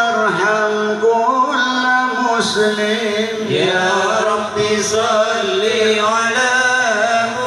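Men's voices chanting an Arabic devotional song (shalawat) together in a slow, drawn-out, ornamented melody.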